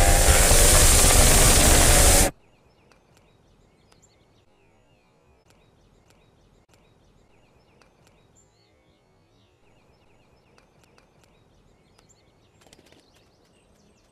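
A loud rushing whoosh for about two seconds, cutting off suddenly. Then faint cartoon birdsong, small chirps scattered over a quiet background.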